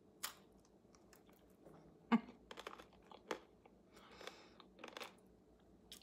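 Faint crunching and chewing of a crunchy cocoa-filled pretzel snack, with scattered sharp crackles, the loudest about two seconds in. The pretzel is also being broken apart by hand.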